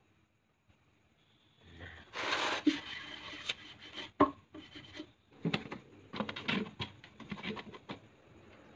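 A wooden table being shifted and handled on a tiled floor: about two seconds in, scraping and rubbing starts, broken by several sharp knocks, the loudest about four seconds in.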